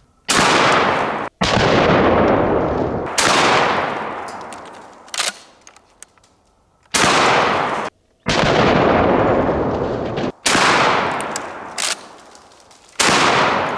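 IWI Tavor TS12 bullpup 12-gauge shotgun firing slugs: about seven loud shots spaced one to four seconds apart, each followed by a long fading echo.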